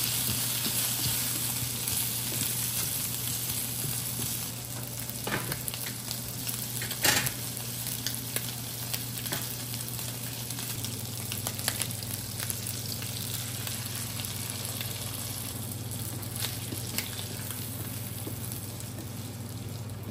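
Bacon and snap peas sizzling in a frying pan, with a steady hiss and a few sharp knocks, the loudest about seven seconds in.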